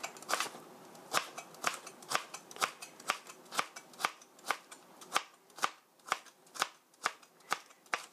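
Chef's knife cutting a carrot into thin matchsticks, the blade knocking on the cutting board in a steady rhythm of about two strokes a second.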